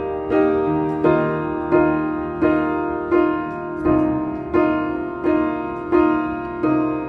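Upright piano playing the opening of a song: a steady run of chords, one struck about every 0.7 seconds, each ringing on until the next.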